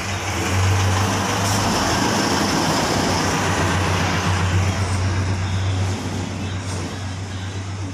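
Gasoline pouring into a motorcycle fuel tank through the filler neck, a steady rushing splash that eases off near the end as the tank nears full, over a steady low hum.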